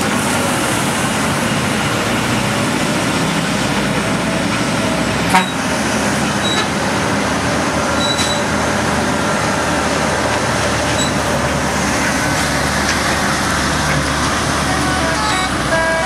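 A heavy truck's diesel engine runs steadily under load as the truck climbs past. A single sharp click comes about five seconds in. Near the end, a multi-tone telolet horn starts playing its stepping melody.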